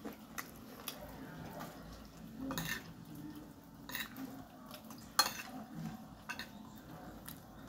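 Metal spoon scraping and clinking against a glass bowl as food is scooped up, in scattered short taps; the sharpest clink comes about five seconds in.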